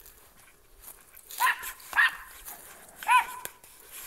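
Small dog barking three times in alarm, in short sharp barks, at a trash bag it takes for an intruder.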